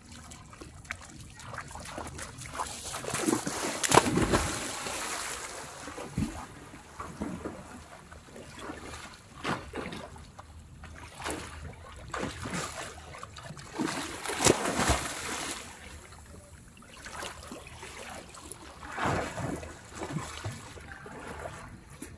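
Water splashing and sloshing as a person wades, dives and swims in shallow seawater. The loudest splash comes about four seconds in, with more irregular bursts later on.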